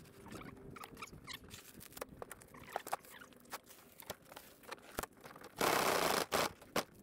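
Old glued-down covering being peeled by hand off a plywood floor panel: a run of small crackles and squeaks as the adhesive lets go, then a loud rip lasting about a second near the end.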